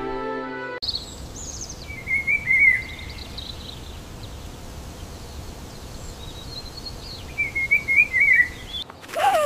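Birds chirping and warbling in short phrases over a steady outdoor background hiss. A louder call with a falling pitch starts near the end.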